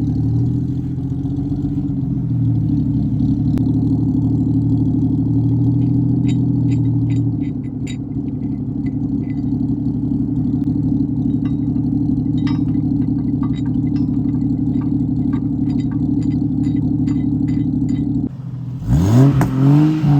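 A vehicle engine running steadily under load in reverse, pulling on a strap tied to a tree, with scattered sharp clicks and cracks. The engine drops off about 18 seconds in, followed by a short, loud rising sound near the end.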